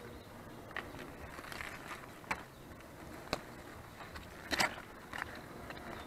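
Footsteps and rustling in dry leaves and long grass: scattered crackles and snaps, the loudest cluster about four and a half seconds in.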